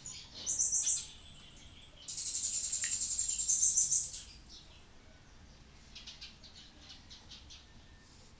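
Artline 500A whiteboard marker squeaking against a whiteboard as lines are drawn: a short high squeak about half a second in, a longer one of about two seconds from two seconds in, then fainter short squeaks near the end.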